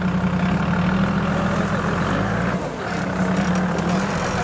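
Engine of a lifted Toyota Land Cruiser 70-series off-road truck running steadily at low revs while it crawls over rough ground. The engine note drops away briefly a little past the middle, then picks up again.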